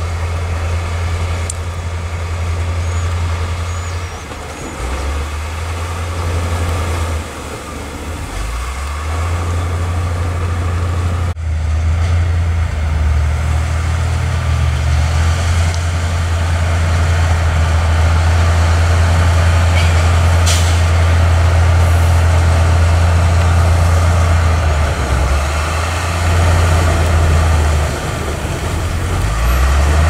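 Crawler bulldozer's diesel engine running under load as it pushes soil, its pitch stepping up and down as the load changes. Near the end, loose soil splashes into the water.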